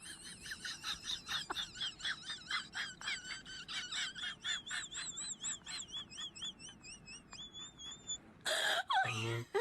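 A fast run of short, high, warbling chirps, about four a second, wavering up and down in pitch. Near the end comes a loud, harsh noisy burst with a falling squeal.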